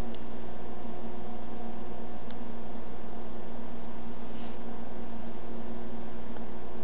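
Steady background hum and hiss, with a faint tick about two seconds in.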